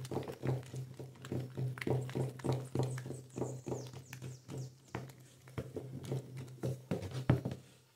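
A wooden spoon stirs caustic soda solution in a plastic bucket, knocking against the sides about two to three times a second while the soda dissolves. A steady low hum runs underneath.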